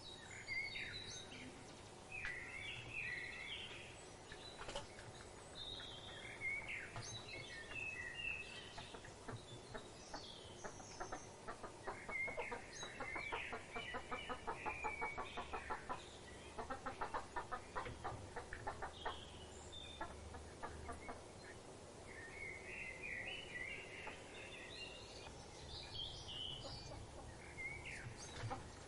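Several birds calling: scattered chirps and short warbling phrases, with long runs of rapid clucking pulses through the middle and again near the end.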